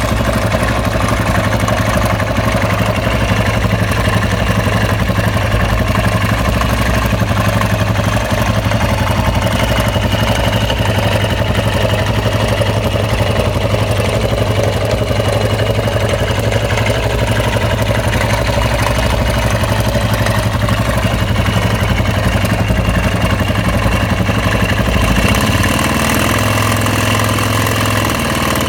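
Husqvarna SM610's single-cylinder engine idling steadily, with a strange noise that its owner is trying to pin down. The engine note changes about 25 seconds in.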